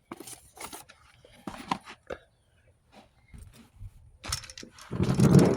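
Scattered clicks and rustles of hand work on motorcycle parts, then a loud, longer stretch of handling noise near the end.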